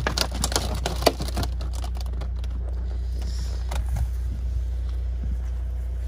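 Empty plastic water bottles crackling and knocking as they are pushed into a cardboard box, with a sharp knock about a second in and a few more clicks near four seconds. A steady low rumble runs underneath.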